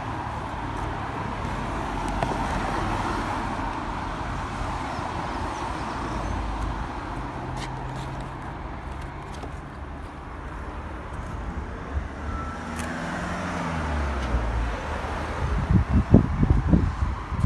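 Steady road traffic going past, with one vehicle's engine note falling as it passes about twelve to fourteen seconds in. In the last two seconds irregular low thumps buffet the microphone, like wind gusts or handling.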